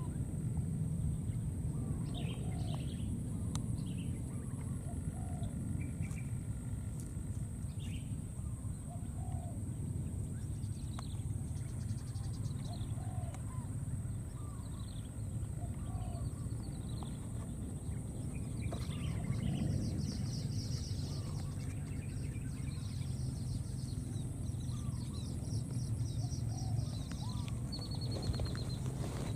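Outdoor ambience of scattered bird chirps, short calls coming every second or two, over a steady high-pitched hum and a constant low rumble.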